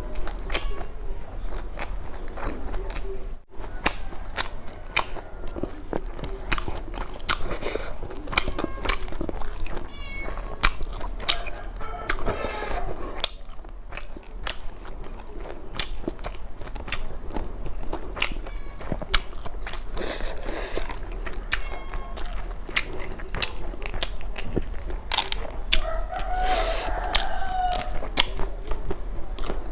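Close-up mouth sounds of someone eating: chewing and lip-smacking with many small clicks all the way through. A brief pitched vocal sound comes near the end.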